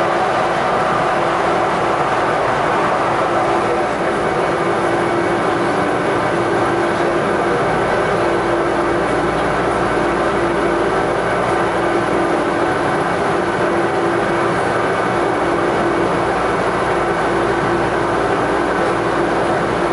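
OrlyVal VAL automated light-metro car running at a steady speed on its rubber tyres along the concrete guideway, heard from inside the car: a constant running drone with a held whine.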